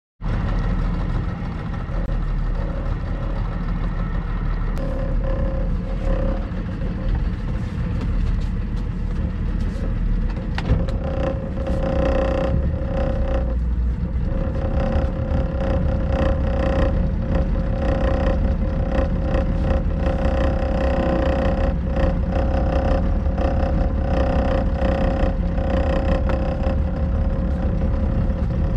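Small motorboat's engine running steadily at low speed, a constant low rumble with a steady hum; it grows a little louder about eleven seconds in.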